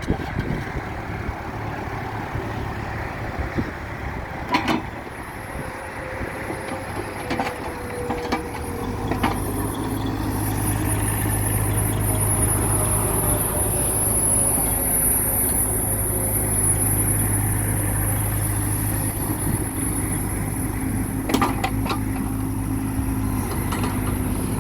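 Bobcat E26 mini excavator's diesel engine running steadily, getting louder about nine seconds in, with a high hiss over it and a few sharp clicks.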